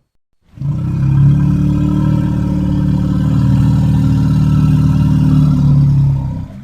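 Monster sound effect for a giant mutated Komodo dragon: one long, low, rough growl that starts about half a second in, is held steady for about six seconds, and cuts off near the end.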